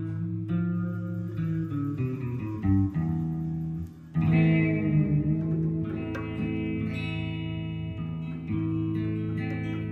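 Music carried by guitar, with sustained notes throughout. It drops away briefly just before the middle, then comes back louder.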